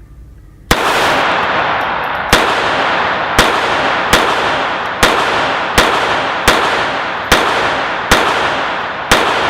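Ten shots from a GSG 1911 .22 LR target pistol fired at a steady pace of about one a second, each crack followed by a long echoing decay of the indoor range.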